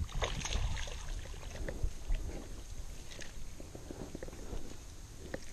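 Handling noise of a small bass being reeled in and lifted by hand from a small fishing boat: a low rumble with scattered light clicks and knocks of rod, reel and line.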